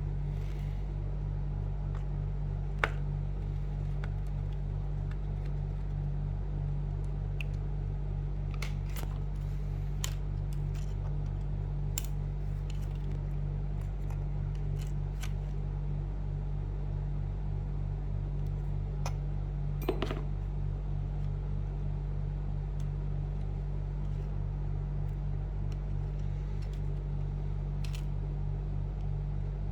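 Scattered small clicks and taps from fingers fitting a tiny cable connector into a MacBook's board, which is not going in. Under them runs a steady low hum throughout.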